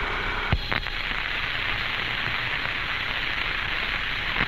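Steady hiss of static on a 1962 Mercury capsule radio and voice recording, between transmissions, with a single click about half a second in.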